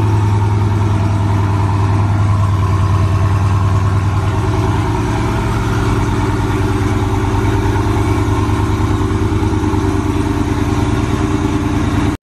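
Dodge Challenger SRT Hellcat's supercharged V8 idling loudly and steadily just after start-up, easing slightly after about five seconds.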